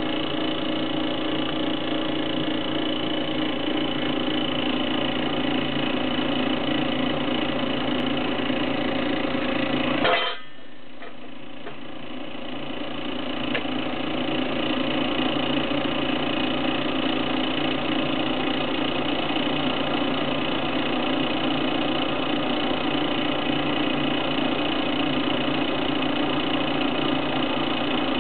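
Stirling engine generator, heated by a cassette gas burner, running with a steady machine hum; the sound drops sharply about ten seconds in and builds back up over the next few seconds.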